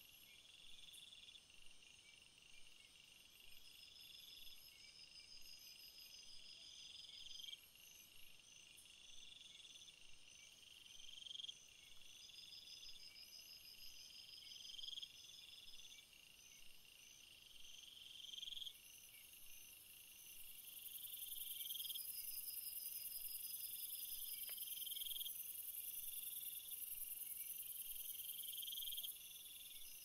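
Crickets chirping in repeated trills that swell and break off every three to four seconds. A second, higher and steadier trill joins about two-thirds of the way through and stops shortly before the end.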